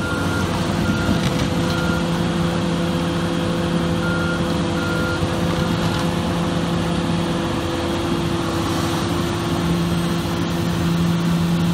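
Excavator's diesel engine and hydraulics running with a steady hum while the boom and bucket move, and the machine's warning alarm beeps about twice a second for the first two seconds and again briefly around four to five seconds in.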